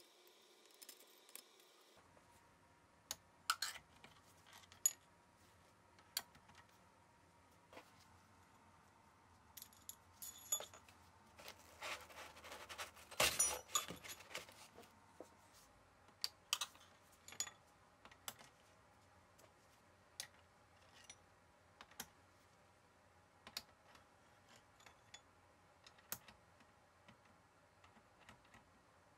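Steel cylinder-head bolts and washers clinking as they are handled and pushed into a cardboard template: a scatter of small, sharp metallic clicks, busiest around the middle.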